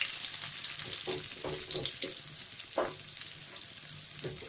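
Chopped onions frying in hot oil in a wok-shaped pan, a steady sizzle, with a wooden spatula stirring and knocking against the pan a few times.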